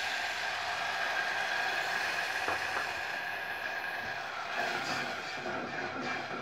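Tomato puree sizzling steadily in hot oil in an aluminium pot, stirred with a steel ladle.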